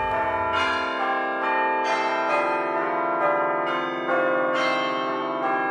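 Outro music of chiming bells: a tune of ringing bell notes, a new note about twice a second, each ringing on under the next.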